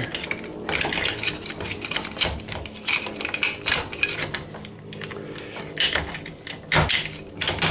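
Screwdriver prying and scraping at a copper-wound part on a computer circuit board: a run of irregular metal clicks and taps, with a louder knock near the end.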